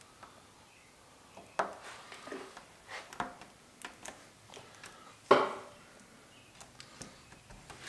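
Scattered small knocks, clicks and rustles of hands working at a car's rear hatch, pressing an emblem into place, with two sharper knocks about a second and a half and five seconds in.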